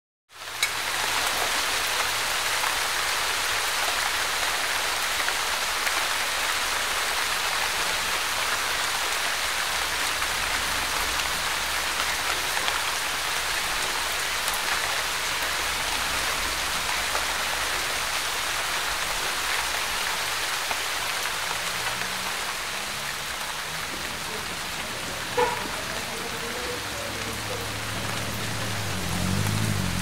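Steady hiss of heavy wet snowfall landing on the road, roofs and trees, sounding like rain. Near the end a low hum joins in, and there is one short sharp sound shortly before it.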